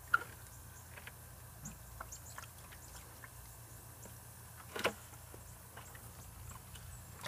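A large plastic bucket handled and tipped over on grass: a sharp knock just after the start and a louder hollow thump about five seconds in, with a few faint small taps between.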